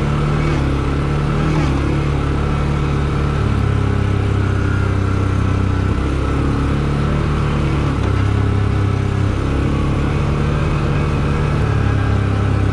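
CFMoto 450L ATV engine running under way, its low drone shifting in pitch a few times as the throttle changes.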